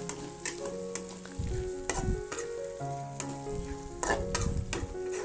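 Green chili paste frying in oil in an aluminium wok, sizzling while a metal spatula stirs it, with scattered scrapes and knocks of the spatula against the pan.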